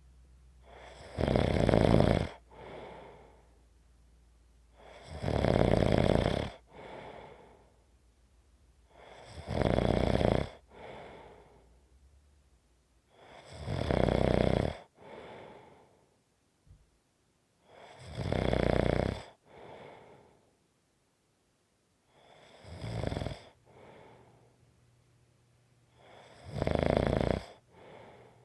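A sleeper snoring at a steady pace: seven loud snores about four seconds apart, each followed by a quieter breath. The second-to-last snore is shorter and weaker.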